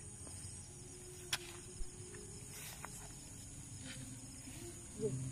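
Crickets and other night insects chirring steadily in high-pitched trills, with two faint clicks about a second and a half in and a brief low sound near the end.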